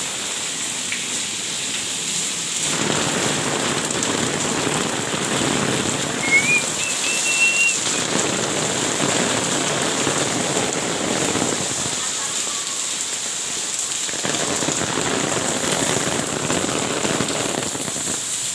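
Steady rain falling and pattering on surfaces, swelling fuller for a few seconds at a time. A short high whistling tone rises and holds briefly about six seconds in.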